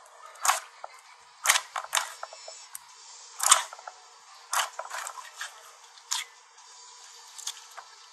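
Clear slime with fruit slices being squeezed and poked by hand, giving irregular sharp pops and clicks, about a dozen of them, the loudest about one and a half and three and a half seconds in. A steady hiss sits under them.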